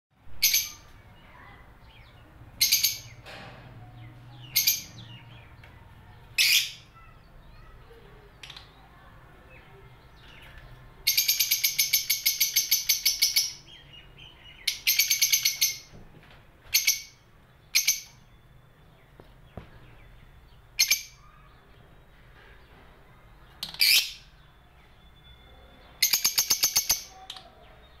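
Caged lovebirds calling: loud, shrill single calls every couple of seconds, broken by three fast chattering runs of chirps lasting one to two seconds each, the longest about halfway through.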